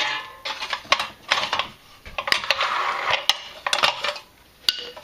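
Sheet-metal oil baffle inside a Jeep 4.0 valve cover being wiggled and pried loose with a screwdriver. Irregular metallic clinks, rattles and scrapes, with a longer stretch of scraping about halfway through.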